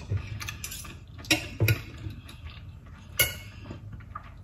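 Metal fork and knife clinking and scraping against a plate while cutting a crumbed fried oyster: a handful of short, sharp clicks, the loudest about three seconds in.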